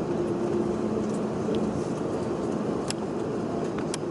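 Steady cabin noise of an airliner on the ground after landing: an even rumble with a low hum, and a couple of light clicks near the end.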